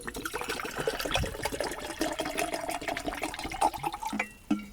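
Water being poured into a container to be heated for coffee, splashing steadily and stopping about four seconds in.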